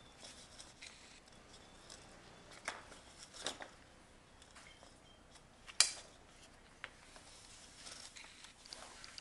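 Twine being pulled and knotted around a rope by hand, soft rustling handling noise broken by a few short, sharp clicks, the loudest about six seconds in.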